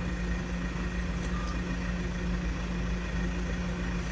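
New Holland tractor's diesel engine idling steadily in neutral, heard from inside the cab, left running to cool down after a long road run. A short faint beep sounds once, about a second and a half in.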